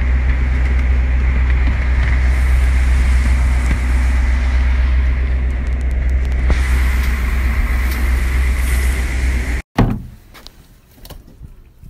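Fishing boat's engine running steadily with a loud, deep hum. It cuts off suddenly about ten seconds in, leaving quieter knocks and clatter.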